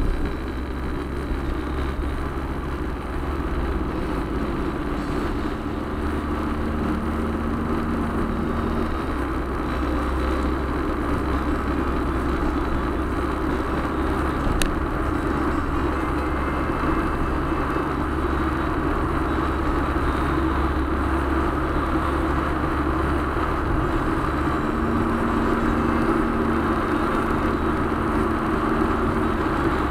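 Road and engine noise of a car driving, heard from inside the cabin, a steady rush that grows gradually louder as the car picks up speed. One faint click about halfway through.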